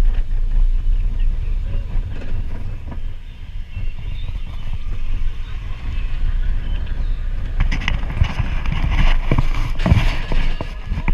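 Expedition Everest roller coaster train running along its track, heard on board: a steady low rumble, joined by a noisier rattle over the last few seconds.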